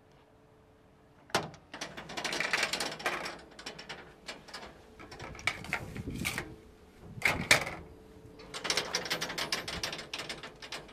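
Steel control-cabinet door being unlatched and opened, and the cabinet handled. There is a sharp click a little over a second in, then irregular clattering and rattling in bursts, with two loud knocks about seven seconds in.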